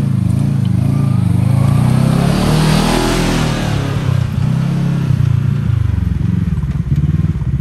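Side-by-side UTV engine pulling away from idle and accelerating, its pitch shifting as it runs, with a rush of noise that peaks about three seconds in; the engine eases back toward a pulsing idle near the end.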